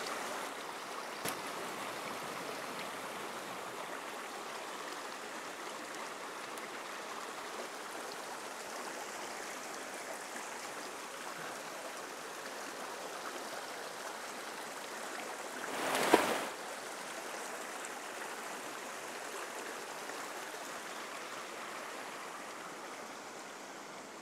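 Shallow rocky stream running over stones and a small cascade: a steady rush of water. About sixteen seconds in, a short louder swell peaks in a sharp knock.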